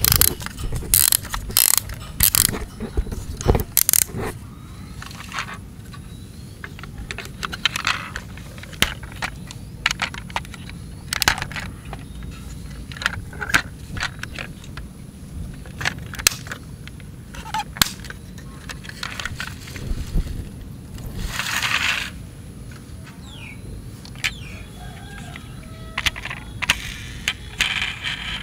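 Toy fire trucks handled by hand: the plastic ladder arm and turntable being swung and the bodies turned over, giving a string of sharp clicks, knocks and rattles, densest in the first few seconds. A brief rustling swell comes about three-quarters of the way through.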